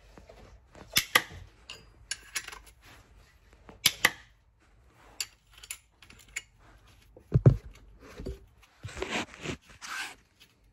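Spanner clinking against metal while undoing the torque rod's 14 mm rear bolts: scattered sharp clicks, a dull thump about seven seconds in, and a stretch of scraping near the end.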